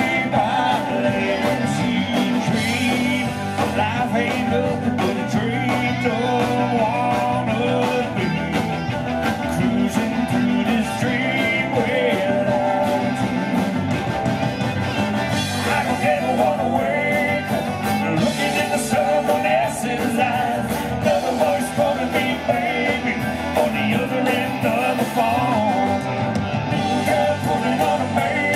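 Live country-rock band playing through a PA: drums, bass, electric and acoustic guitars, keyboard and fiddle, with singing over the top.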